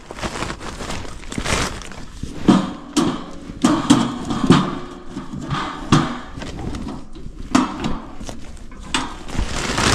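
Repeated metallic clanks and knocks from a small steel tent stove as its door is opened, the firebox loaded, and the door shut again.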